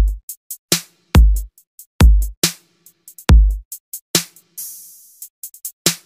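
Background electronic music with a drum-machine beat: heavy bass-drum hits and sharp hi-hat-like ticks, with a short hissing sweep just before the end.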